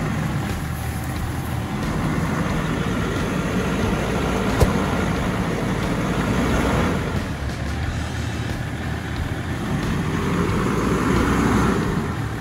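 Range Rover engine running as the 4x4 drives slowly along a rough lane, with one sharp knock about four and a half seconds in. The engine gets louder for a couple of seconds near the end.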